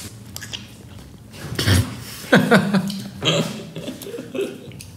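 A man's wordless vocal reactions to biting into a raw lemon wedge: short grunts and a falling groan about two seconds in at the sourness.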